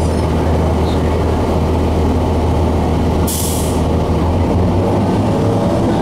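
Cummins ISC inline-six diesel of a 2002 Blue Bird CS transit bus running, heard from inside the bus as it drives. About three seconds in, a short sharp hiss of air from the air brakes.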